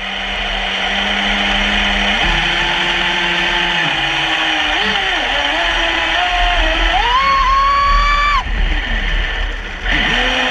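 Traxxas Spartan RC boat's brushless electric motor whining over a steady hiss, its pitch rising and falling with the throttle. The whine climbs to its highest about seven seconds in, cuts off suddenly about a second later, and picks up again near the end.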